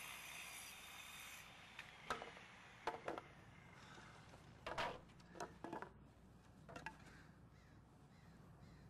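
Crows cawing: several short, harsh calls, some in pairs. Early on a power tool's steady whine cuts off about a second and a half in.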